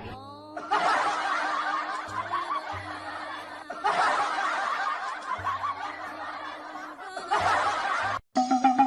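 A crowd laughing in three long swells, the kind of laugh track laid over funny clips, with background music underneath.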